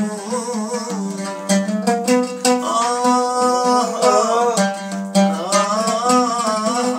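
Oud played with quick repeated plucking, and a man's voice singing long, wavering held notes over it.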